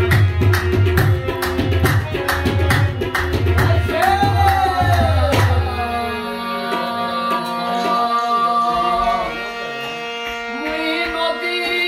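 Qawwali music: tabla beating a steady rhythm under a harmonium and singing. About halfway through the tabla stops, leaving the harmonium's held notes and the voice.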